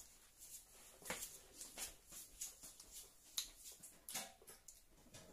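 A child chewing crispy fried chicken: a faint, irregular run of small crunches and mouth clicks, the sharpest about a second in, near three and a half seconds and just after four seconds.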